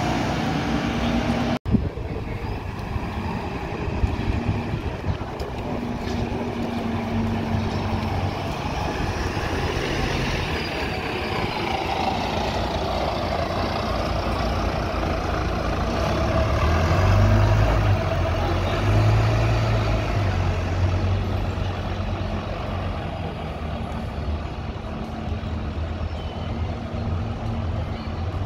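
Double-decker bus engine running at close range with street traffic noise, growing louder a little past the middle as the bus pulls past, with a brief break in the sound just after the start.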